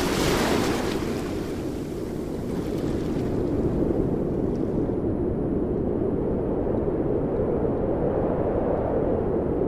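Steady rushing, rumbling noise of wind on the microphone over open sea. About five seconds in, the higher hiss drops away, leaving a steady low rumble.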